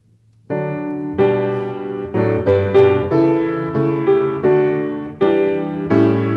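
A piano starts playing about half a second in: a slow classical-style piece with chords and notes struck roughly every half second, each ringing and fading.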